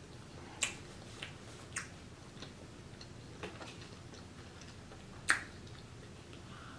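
Quiet eating sounds: a handful of sharp clicks and taps, the loudest about five seconds in.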